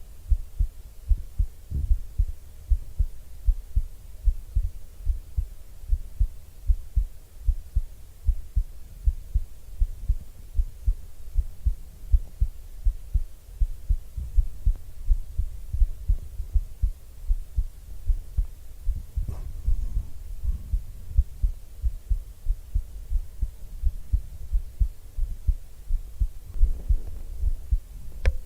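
A person's heartbeat heard close up: steady low thumps in an even rhythm, with a brief soft scuff about two-thirds of the way through and again near the end.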